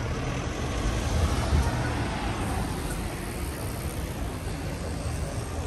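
Road traffic on a city street: motor vehicle engines running with a steady low rumble that swells briefly about a second and a half in.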